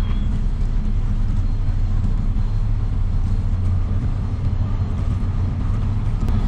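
Steady, deep rumble of the Great Lakes freighter Presque Isle's engines and propellers as its stern passes close by.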